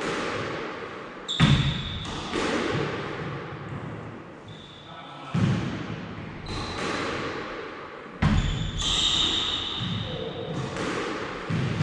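Squash ball being struck with racquets and hitting the court walls, with sharp, echoing hits every second or two. Short high squeaks come between the hits.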